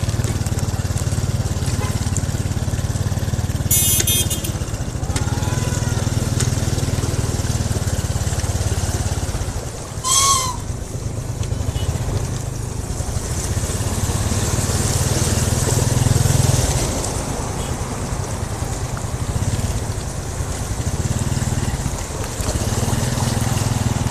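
Motorcycle engine running steadily while riding through deep floodwater, with a constant hiss of water churning around the bike. A short beep about ten seconds in.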